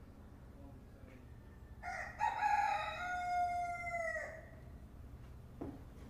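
A rooster crowing once: a single call of about two and a half seconds, starting about two seconds in, held steady and dropping in pitch at the end.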